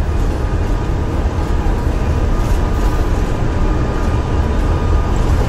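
Airbus A340 cockpit noise during take-off: a steady, heavy low rumble with hiss and a faint steady whine from the aircraft's engines and airframe.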